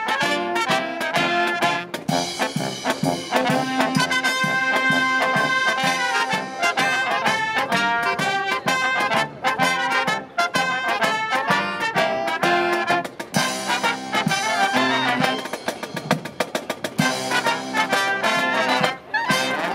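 Marching brass band playing a lively tune: trumpets, saxophones, clarinets and sousaphone carry the melody and bass over snare drum and cymbals keeping the beat.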